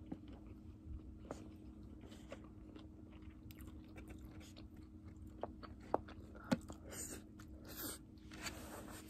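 Close-up chewing of grilled beef, rice and kimchi, with light clicks of chopsticks against a plastic takeout tray; two sharp clicks come about six seconds in.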